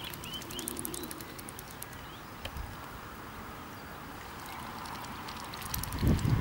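Two domestic geese feeding, their bills clicking as they dabble in a bucket and peck at a mat. A few faint small-bird chirps can be heard, and a couple of heavy low thumps come near the end.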